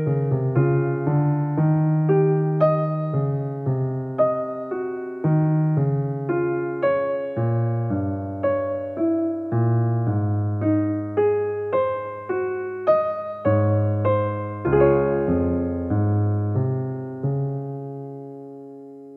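Background instrumental music: a slow melody of struck, keyboard-like notes and chords, ending on a held chord that fades out near the end.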